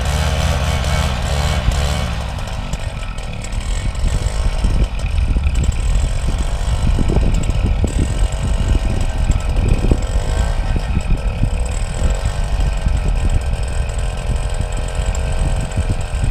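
Paramotor engine and propeller running, its pitch rising and falling as the throttle is worked while the pilot gets ready for and begins a forward launch.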